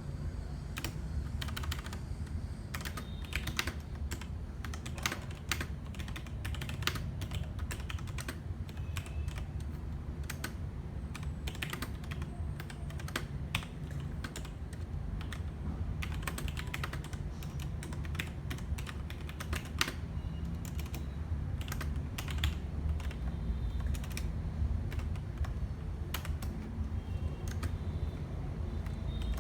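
Logitech G Pro mechanical keyboard being typed on: a fast, irregular run of key clicks over a steady low hum.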